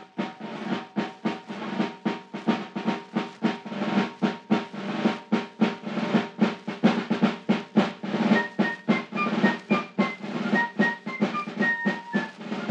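Music: a drum beating a fast, steady rhythm over held low notes, with a higher melody joining about eight seconds in.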